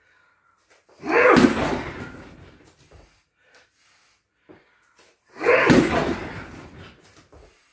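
Sledgehammer striking a car tyre mounted on a freestanding boxing stand: two heavy thuds about four seconds apart, each trailing off over a second or so.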